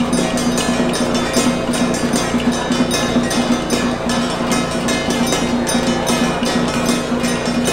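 Procession music: a fast, even percussion beat over a steady held tone.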